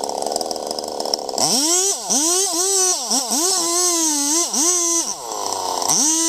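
Chainsaw engine running low, then revving to full throttle about a second in, its pitch dipping again and again, as when the chain bites into wood. It drops back briefly near the end and revs up again.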